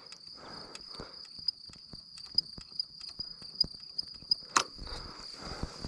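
Steady high-pitched trilling of crickets, pulsing slightly, with scattered faint clicks and rustles and one sharper click about four and a half seconds in.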